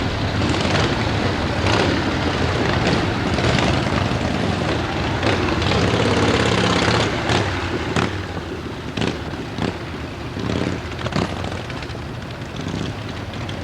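Motorcycle engines running in a steady, loud rumble, with a series of sharp pops in the second half.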